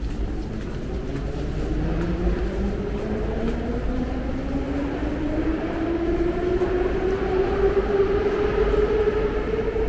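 Metro train pulling away and gathering speed, its traction motors giving a whine that rises steadily in pitch and levels off near the end, over a low rumble.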